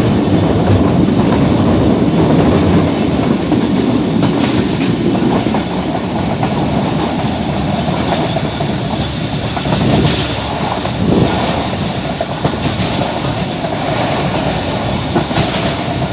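Passenger train running on the rails, a steady rumble with wheel clicks over the rail joints, a few louder ones toward the end.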